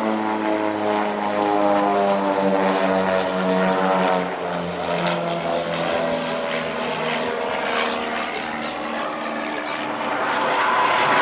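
Display aircraft flying overhead. Its engine hum falls slowly in pitch over the first several seconds, fades, then grows louder again near the end.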